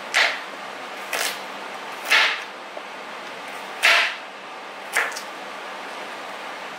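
Kitchen knife chopping raw carrots into chunks on a chopping board: five crisp chops, spaced about a second apart.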